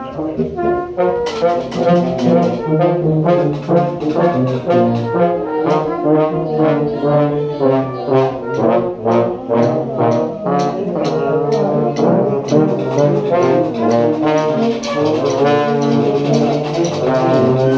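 Brass street band playing a funk riff with trombones prominent, the notes stepping up and down in short repeated figures. Sharp drum hits join about a second in and keep a steady beat under the horns.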